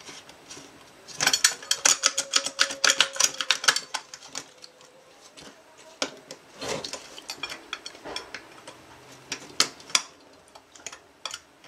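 Pliers and a screwdriver clicking and scraping against screws and nuts on a metal avionics chassis while working at a fastener that will not come off. A quick run of clicks a second or so in lasts about three seconds, then thins to scattered clicks.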